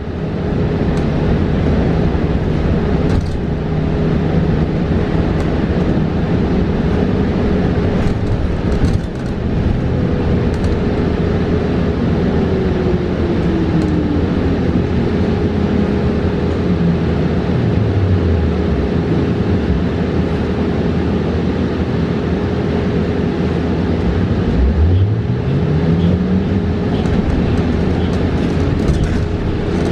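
Inside a New Flyer XE40 battery-electric bus: the electric drive motor's whine falls steadily in pitch as the bus slows, nearly to a stop. A few seconds later it rises again as the bus pulls away. Under it run steady road and cabin noise and a constant hum.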